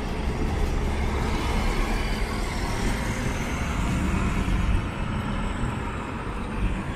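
Steady road traffic noise from a busy multi-lane road, with the hum of cars and buses in slow, heavy traffic.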